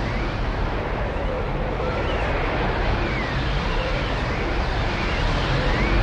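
Swirling vortex sound effect: a steady, dense rushing rumble with faint swooping tones that rise and fall every second or so.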